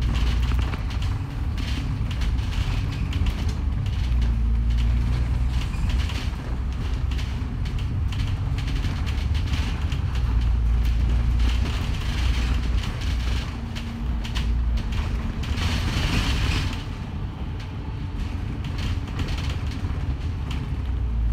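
Bus riding on the road: a low engine drone that rises and falls in steps, with rattles and creaks from the bodywork over it, and a short burst of hiss about sixteen seconds in.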